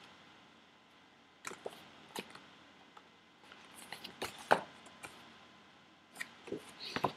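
Scattered light taps and rustles of small items being handled and set down, with a few sharper clicks about four seconds in and near the end.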